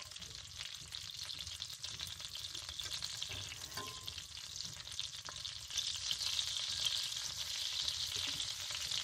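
Hot oil and melting butter sizzling steadily in a skillet. About six seconds in the sizzle grows louder as a flour-dredged chicken breast goes into the fat.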